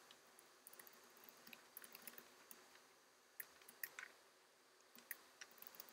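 Faint typing on a computer keyboard: soft, irregular key clicks.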